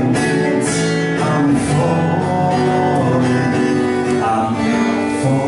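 A band playing a song live, with guitar prominent.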